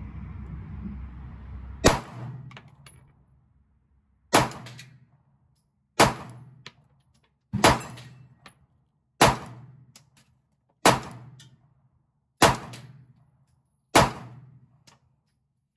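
Eight single shots from a Glock 43x 9mm pistol, fired slowly and evenly about one and a half seconds apart, each crack trailing off in an echo.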